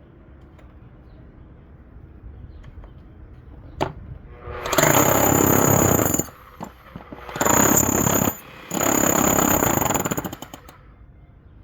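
Milwaukee 5546-21 SDS MAX rotary hammer running in three bursts of a few seconds each, hammering with a high motor whine, after a sharp click about four seconds in.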